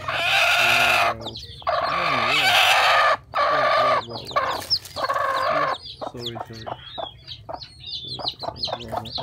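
Broody black hen giving four loud, noisy squawks over the first six seconds as a hand reaches into her nest, then settling into low repeated clucks. A newly hatched chick peeps in short high chirps throughout.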